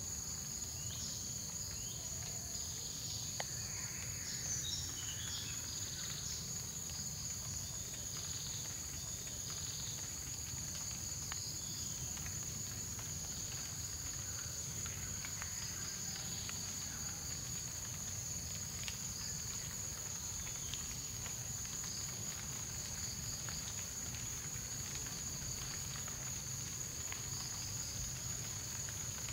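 Forest insects droning in a steady high-pitched chorus, with a few short chirps in the first several seconds and a low steady rumble underneath.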